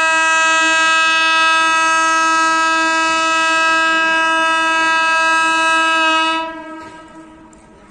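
Rajdhani Express locomotive's horn sounding one long, steady, single-pitched blast. It holds for about six seconds, then fades away.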